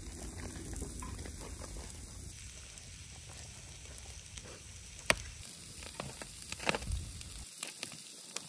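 Meat and sausages sizzling in aluminium grill trays over an open wood fire, with sharp crackles from the burning wood; the loudest pop comes about five seconds in. Near the end come several light clicks of metal tongs on the tray.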